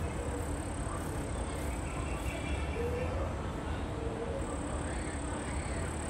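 Outdoor ambience: a steady low rumble with faint distant voices, and a thin high steady whine that grows louder about four seconds in.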